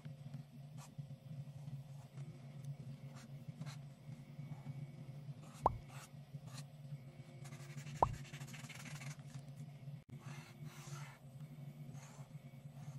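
Marker tip scratching across paper in short strokes, with two soft thumps about two and a half seconds apart in the middle, over a low steady hum.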